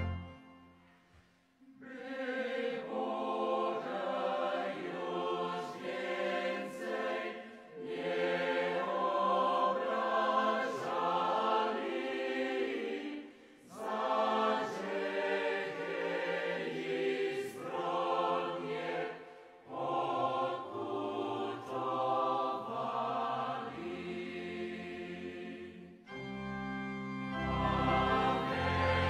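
Music: a choir singing a slow sacred hymn in long phrases of several seconds, with short pauses between them. About three seconds before the end, fuller music with a deep bass takes over.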